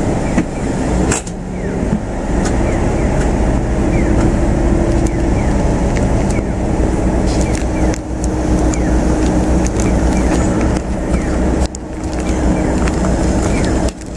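Car engine idling while stopped in traffic, a steady low rumble with a faint hum, as passing road traffic goes by.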